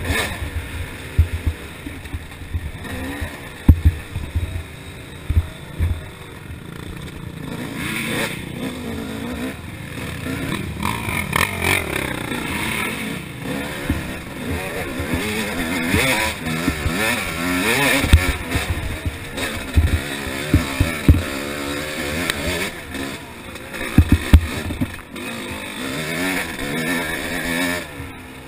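Yamaha YZ250 two-stroke dirt bike engine being ridden hard, its pitch rising and falling with the throttle, louder from about eight seconds in. Heavy thumps break in repeatedly, most of them in the first few seconds and a cluster near the end.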